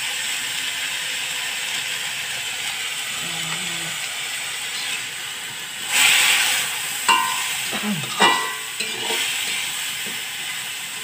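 Tempe frying in a metal wok, sizzling and hissing steadily after a splash of water, while a metal spatula stirs it. About six seconds in the sizzle flares up loudly, followed by two ringing clanks of the spatula against the wok about a second apart.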